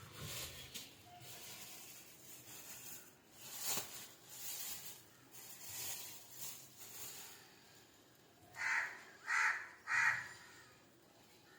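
A crow cawing three times in quick succession near the end, after several seconds of faint hissing noise.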